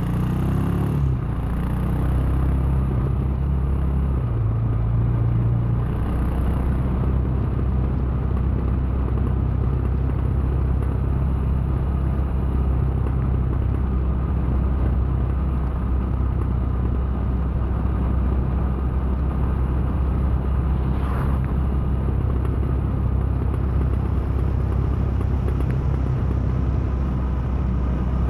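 The 2017 Royal Enfield Himalayan's single-cylinder engine running under way. It revs up at the start, changes note about a second in, then holds steady cruising for the rest of the stretch.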